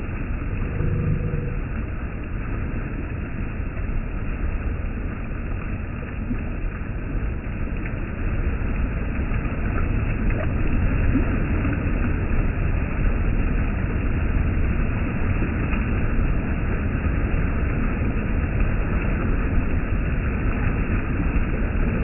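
Stream water rushing and churning over a low ledge into whitewater: a deep, steady rushing noise that grows slightly louder about eight seconds in.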